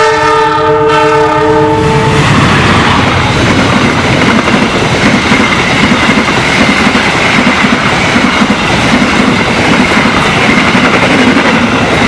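Argo Dwipangga passenger train hauled by a GE CC206 diesel locomotive, passing close by. The locomotive's multi-note horn sounds for about two seconds and cuts off. The coaches then rush past with a regular clickety-clack of wheels over the rail joints and a thin, steady high ring from the wheels on the rails.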